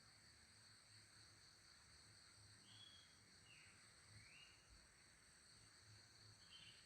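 Faint outdoor ambience: a steady, high insect drone, with a few short bird chirps in the middle and near the end.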